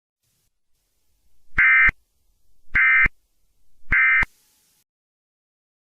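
Three short, buzzy electronic data bursts about a second apart: the Emergency Alert System end-of-message (SAME "NNNN") tones that close an alert broadcast.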